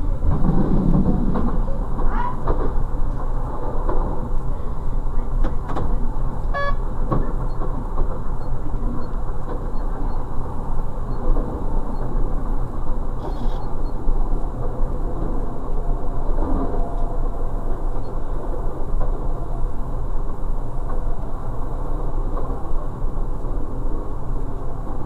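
Class 628 diesel railcar running along the line, heard from the driver's cab: a steady engine drone mixed with wheel-on-rail rumble. A short, high pulsed tone sounds once, about six and a half seconds in.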